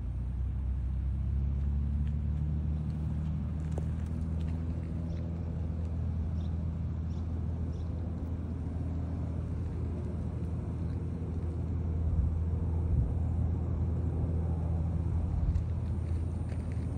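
A steady, low engine hum that swells in at the start and holds, a little louder in the second half, with a few faint ticks above it.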